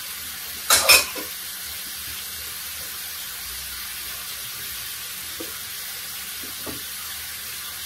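Mushrooms and beef sizzling steadily in a hot skillet, with two sharp clatters about a second in.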